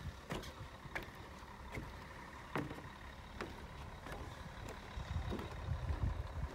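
Footsteps on the wooden planks of a boardwalk, about one step every three-quarters of a second. A low rumble builds near the end.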